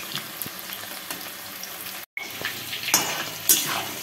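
Chicken pakoras frying in hot oil in a kadai: a steady sizzle with scattered crackles. The sound cuts out for an instant about halfway, and a few louder knocks come near the end.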